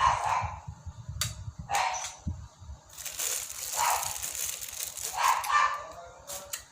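A dog barking repeatedly, several barks about a second apart, with a stretch of hissing noise midway.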